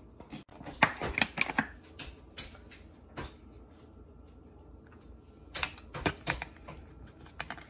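Sharp clicks and taps of kitchen handling: a fork stabbing raw potatoes against a plastic cutting board, then a plastic oil bottle being handled and its cap twisted off. The clicks come in two clusters, one about a second in and another near six seconds, with a few single taps between.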